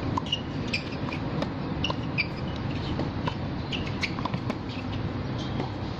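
Tennis rally on an outdoor hard court: racquet strikes on the ball, one about four seconds in, with many short high-pitched squeaks of shoes on the court, over a steady low rumble.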